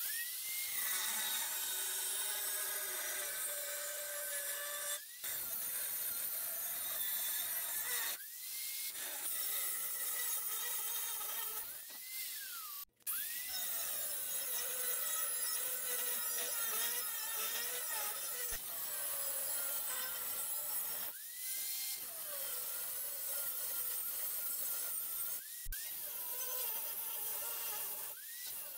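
Handheld angle grinder with an abrasive cut-off wheel cutting metal plate: a hissing grind over a motor whine whose pitch wavers as the wheel bites. It stops briefly several times, and each time the whine rises back up to speed.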